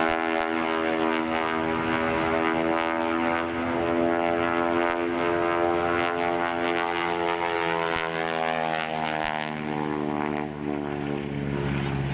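Aerobatic biplane's piston engine and propeller droning overhead in a steady, even tone whose pitch drifts slightly down and back up as the plane manoeuvres.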